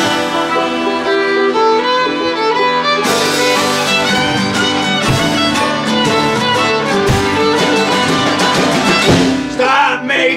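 Acoustic folk-punk band playing an instrumental passage: a fiddle carries the lead over strummed acoustic guitar, with harmonica and accordion filling in.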